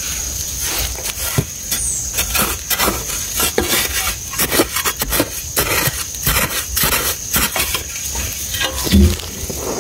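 Gloved hand scraping and scooping dry, crumbly soil out of a hole, a quick irregular run of scratches and loose earth pattering down, with a louder knock about nine seconds in.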